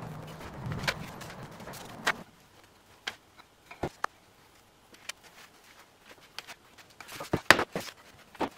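Scattered light knocks and clicks of objects being handled on a workbench, with several in quick succession near the end. A low steady background noise cuts off about two seconds in.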